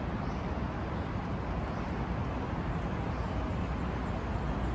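Steady outdoor city background noise, a constant hum of distant traffic with no distinct events.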